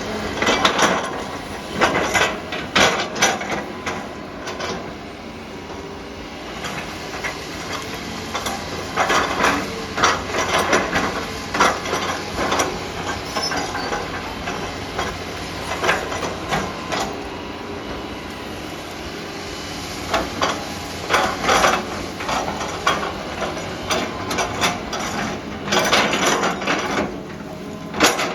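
Excavator's diesel engine running with frequent irregular clanks and knocks.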